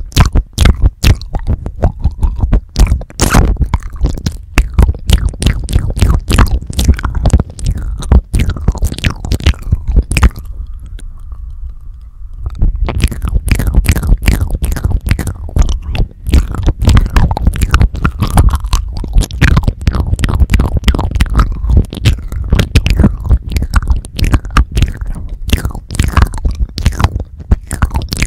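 Wet mouth sounds made right on a Tascam DR-40X recorder's X/Y microphone capsules: lips and tongue licking and nibbling at the mics in a fast, dense run of wet clicks, smacks and pops. A short quieter lull comes about ten seconds in.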